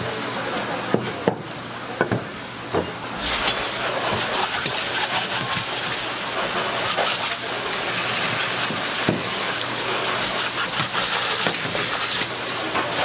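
A few sharp clicks and knocks of a knife working through a surgeonfish on a plastic cutting board. About three seconds in, a hose's pistol-grip spray nozzle opens up with a loud, steady hiss of water jetting onto the fish and board.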